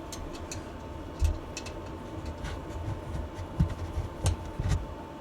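Small nuts, washers and a spanner being handled and fitted onto battery terminals: scattered light metallic clicks and ticks with a few low knocks.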